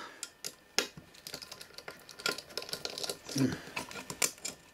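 Irregular light metallic clicks and ticks of an Allen key working out small screws and thin washers that hold a circuit board in an aluminium box. A brief murmur of voice comes about three and a half seconds in.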